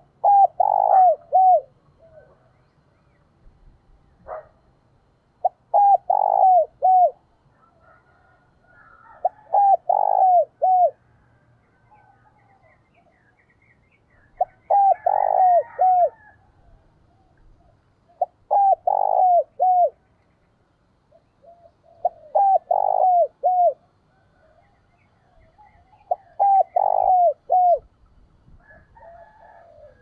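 Spotted dove cooing its song, seven short phrases of a few coos each, one about every four seconds.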